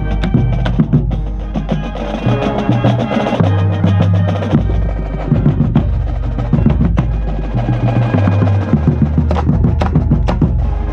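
Marching band playing: brass holds low chords that shift every second or so, under a drumline of bass and snare drums striking many sharp hits.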